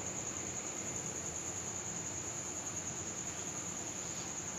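Crickets trilling steadily: one continuous high-pitched trill over a faint background hiss.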